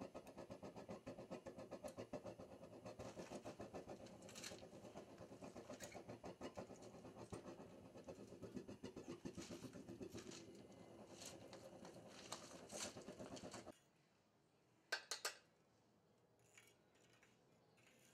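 Small propane melting furnace on a very low flame, puffing in a fast pulsing rhythm: the propane is turned down extremely low so the crucible can be topped up. Light metallic clicks of aluminum scrap and tongs come through the puffing. Near the end the puffing cuts off suddenly, leaving near silence and a couple of sharp clicks.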